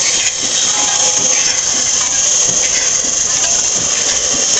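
WWII-era ammunition-making machine running, its mechanism clattering steadily.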